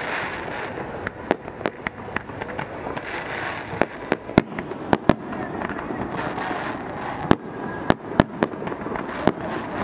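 Fireworks display: aerial shells bursting in sharp, irregularly spaced bangs, more than a dozen of them, over a steady background din.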